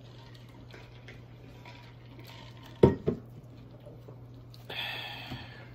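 Eating sounds at a table set with paper plates of wings and sliders, over a steady low hum. A little before halfway come two short loud sounds in quick succession, and near the end a brief rustle.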